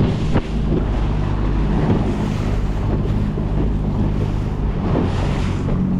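Outboard motor of a small rigid inflatable boat running steadily under way through choppy swells, with water rushing and splashing along the hull and wind buffeting the microphone.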